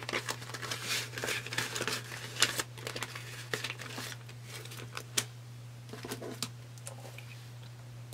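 Paper banknotes rustling and a clear plastic binder pouch crinkling as a stack of cash is handled and slipped inside, with a sharp tick about five seconds in; the handling dies away toward the end.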